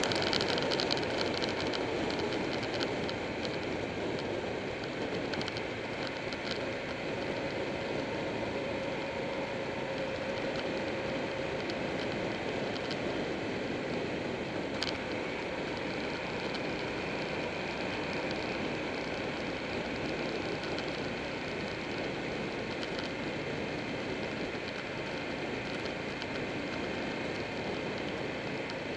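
Buell 1125R's V-twin engine running at a steady cruise, under a dense rush of wind and road noise as the motorcycle rides along.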